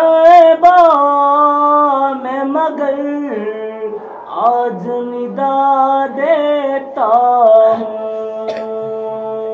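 A solo man's voice chanting unaccompanied in Islamic devotional recitation, drawing out long held notes with wavering ornaments at the start of each phrase.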